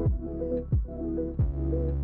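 Background electronic music with a steady beat: a deep kick drum about every two-thirds of a second under sustained bass notes and soft chords.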